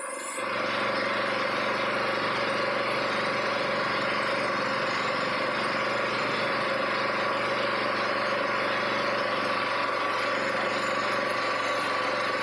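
2011 Kia Picanto's petrol engine running steadily, heard during an engine carbon-cleaning (engine flush) treatment; the sound comes up about half a second in and then holds an even, unchanging pitch.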